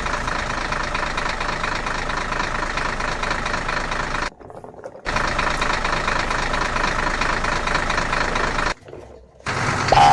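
A tractor engine running at a steady idle, cutting out abruptly twice for about half a second.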